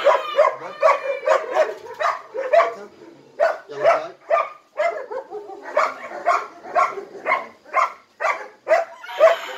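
Dogs barking over and over, about three barks a second, with two short pauses midway.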